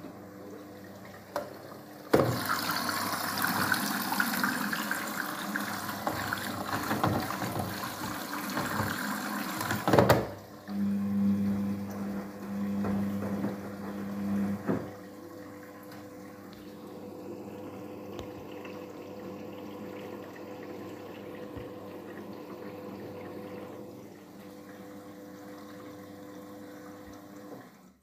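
Daewoo DWD-FT1013 front-loading washing machine early in a cotton 40°C wash: water rushes and sloshes in the drum as it tumbles wet laundry, loudest from about two to ten seconds in. After that comes the drum motor's steady hum with a low tone, which turns quieter over the second half.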